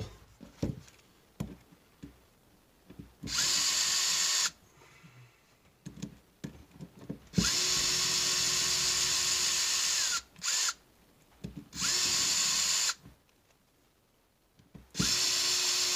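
Electric driver whirring in several short runs, the longest about three seconds, with light clicks and handling between them: it is backing out the pre-loosened screws that hold the ring gear on a Traxxas X-Maxx 8S rear differential.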